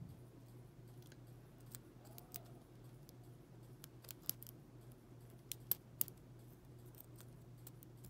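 Faint, scattered metallic clicks and scrapes of a lock pick and tension wrench working the pin tumblers inside a brass S&L padlock, with a few sharper clicks a little past the middle. A steady low hum runs underneath.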